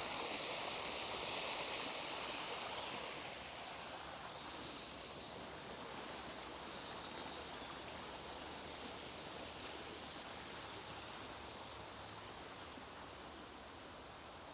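Stream rushing steadily over its bed, slowly fading. A bird sings a few high chirps a few seconds in.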